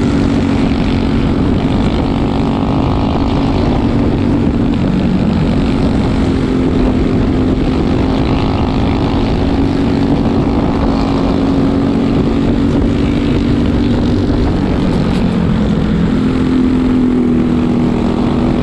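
Briggs & Stratton LO206 single-cylinder four-stroke kart engine running at racing speed, heard from on board with wind and tyre rumble. Its note drops twice as the kart slows for corners and climbs back on the straights.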